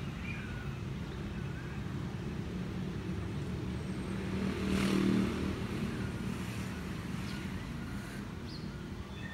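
Steady low outdoor rumble, with a road vehicle's engine swelling louder as it passes about five seconds in. A few faint high chirps sit above it.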